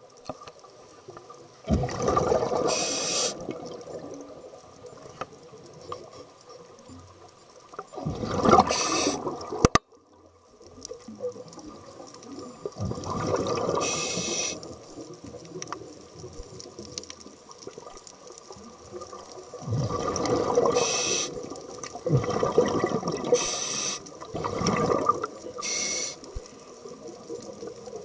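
A scuba diver breathing through a regulator, heard underwater through the camera housing. About six bursts of rushing exhaled bubbles come every few seconds, each a second or two long, most with a high hiss. A faint steady hum runs underneath.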